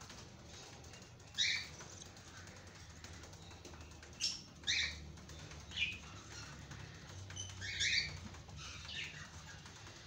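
Cockatiel chick in a nest box making short high chirps, about six spread out, which the breeder takes for a chick being fed by a parent inside the box.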